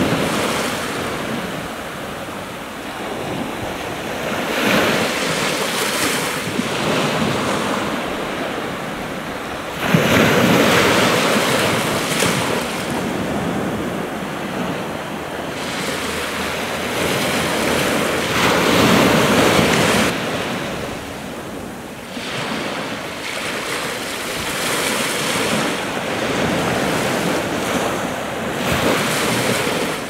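Sea waves breaking and washing up the shore, swelling and ebbing every few seconds, with the loudest wave breaking sharply about ten seconds in.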